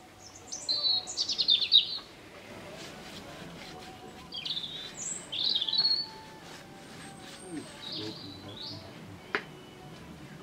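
Small garden songbirds singing in short bursts of high, quick chirps and trills, loudest about a second in and again around five seconds in, with one sharp click near the end.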